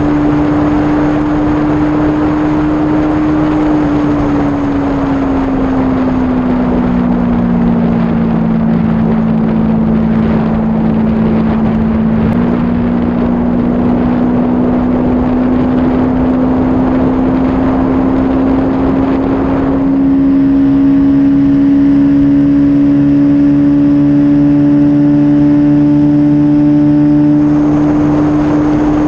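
Kawasaki Z400 parallel-twin engine on stock exhaust, running at high revs while the bike is ridden, with wind noise on the microphone. The engine note eases down a few seconds in, steps up near the middle and climbs slowly again, then turns louder and fuller for several seconds in the latter part before settling back.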